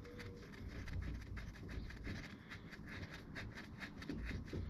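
Faint, irregular light ticking and scraping of the transmission drain plug being threaded into the pan by hand.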